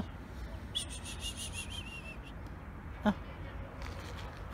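A small bird calling in the background: a rapid run of repeated high chirping notes, starting about a second in and lasting about a second and a half.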